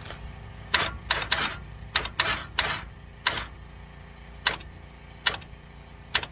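Sharp, irregular clicks, about ten of them, as a big-block Chevy V8 with its spark plugs out is turned over by hand to bring a cylinder's exhaust valve to just opening for a valve-lash check.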